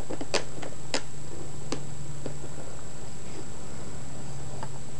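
A few light, sharp clicks and taps of a plastic clamshell package being handled, mostly in the first couple of seconds, over a steady low hum.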